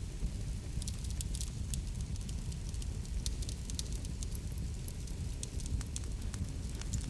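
Wood fire burning in a fireplace: a steady low rumble with frequent sharp crackles and pops.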